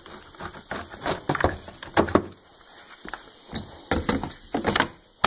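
Hard plastic clicks and knocks of a Milwaukee M18 lithium battery pack being slid off its charger and handled, several separate clacks with the loudest about two seconds in and again near the end.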